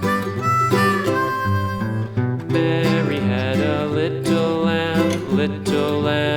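Country-style instrumental music: strummed acoustic guitar with a harmonica playing the melody.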